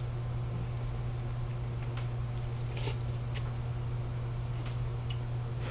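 A person slurping and chewing instant ramen noodles eaten with chopsticks: one longer slurp about three seconds in and small wet mouth clicks, over a steady low hum.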